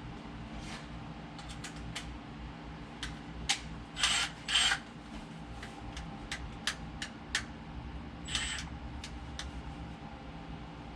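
Scattered light clicks and clinks of hand tools and metal parts being handled, with short scraping rustles a little after four seconds in and again around eight seconds, over a steady low hum.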